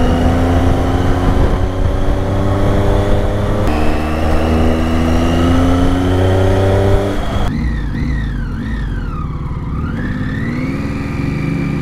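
Triumph Tiger 800's three-cylinder engine accelerating, its note climbing steadily, with an upshift about four seconds in and another steady climb. About seven seconds in the throttle closes and the engine falls to a lower, quieter run as the bike slows.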